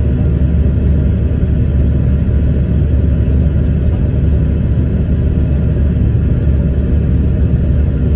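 Steady low rumble of a passenger plane heard from inside the cabin during landing.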